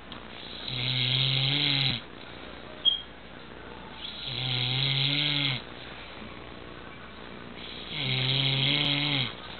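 A man snoring in his sleep: three long snores about three and a half seconds apart, each a low buzzing tone with a hissy edge. A short sharp click comes about three seconds in.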